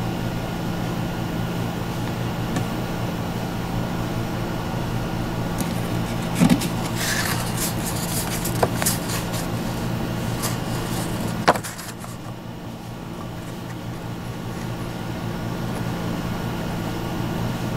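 Steady low hum with a few light clicks. The sharpest click comes about eleven and a half seconds in, after which the hum drops and slowly comes back up.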